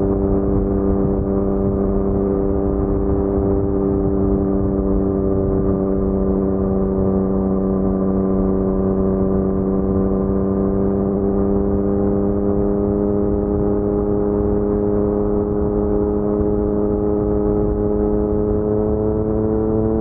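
Yamaha MT-09's crossplane three-cylinder engine through an Akrapovic carbon full-system exhaust, holding steady revs while riding, its note climbing slowly over the last few seconds.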